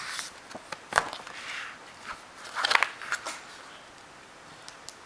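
A picture book's paper page being handled and turned: a few light taps, then short rustles, the loudest about two and a half seconds in.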